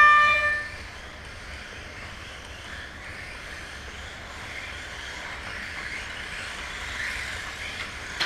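Electronic start tone from the race timing system, ending under a second in, then the steady high whine and tyre hiss of a pack of Mini-Z 1:28 electric RC cars racing on the foam track.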